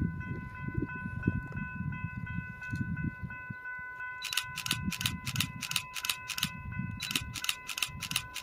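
Wind buffeting the microphone, under a steady high ringing tone. From about four seconds in comes a fast series of sharp dings, roughly three to four a second: a grade-crossing warning bell going off as an Amtrak San Joaquins train approaches.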